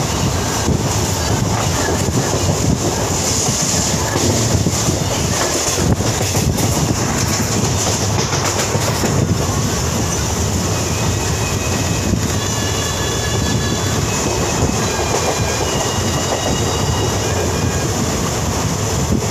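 Train running at speed, heard from on board: a steady rumble of wheels on rail with clickety-clack and rushing air. Brief thin high squeals come and go in the second half.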